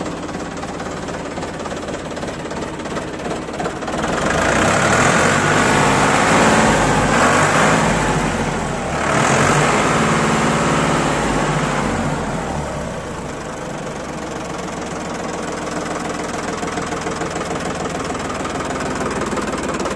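1994 Ford 3620 tractor's three-cylinder diesel engine running. It goes louder and higher-pitched from about four seconds in, dips briefly near the middle, and settles back to a steady idle from about twelve seconds.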